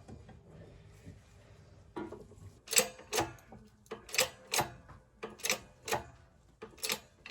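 Hand-worked workshop press pressing a polyurethane bush into a suspension bottom arm: sharp mechanical clicks, mostly in pairs, a pair about every second and a half, starting between two and three seconds in.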